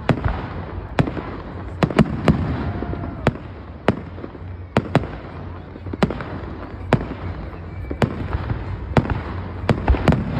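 Aerial fireworks going off one after another in a show: sharp bangs about every half second to a second at uneven intervals, several close together near the end, over a steady low rumble.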